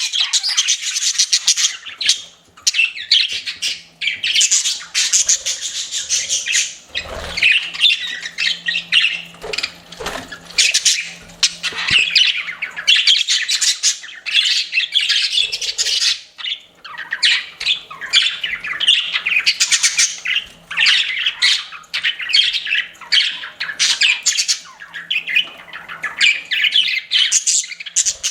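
Pet budgerigars chirping and warbling continuously, several birds at once, in a busy run of quick chirps and chattering calls.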